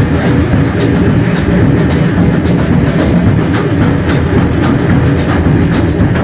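Improvised trip-hop style drum and electronic jam: a dense, rumbling low-end layer with sharp, high hits on the beat about twice a second.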